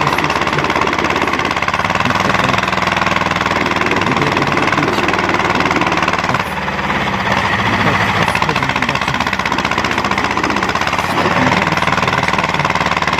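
Diesel tractor engine running hard under heavy load while towing a log-laden trailer, a loud, steady, rapid knocking. It eases briefly about halfway through, then picks up again.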